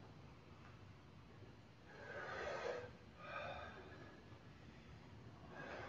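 A man breathing hard from exertion: two loud breaths close together about two seconds in, then a softer one near the end.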